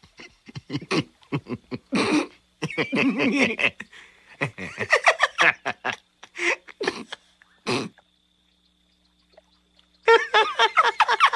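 Two cartoon beavers snickering and giggling in a quick string of short bursts. They fall silent for about two seconds, then break into loud open laughter about ten seconds in.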